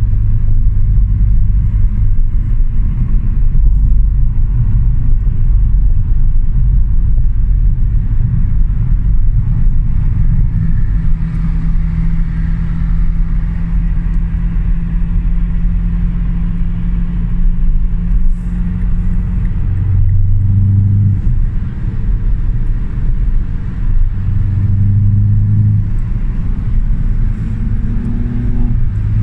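Car engine and road noise heard from inside the cabin while driving at speed, a steady low rumble. The engine note swells and rises a few times in the second half as the car accelerates.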